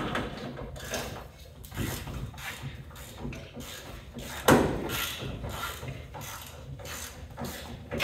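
Irregular clicks, clanks and knocks of hand tools and metal hardware being worked at a truck sleeper's door frame, with one louder knock about four and a half seconds in.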